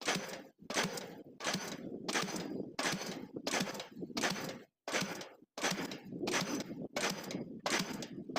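Diesel pile hammer running and driving a concrete spun pile: a steady train of sharp blows, about two a second, broken by a short gap about five seconds in.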